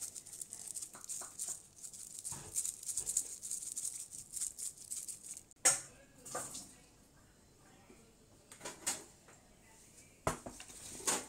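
Bottle of garlic and onion seasoning shaken over potato wedges: a dry, rattling patter of granules. A few sharp clicks follow, about halfway through and near the end.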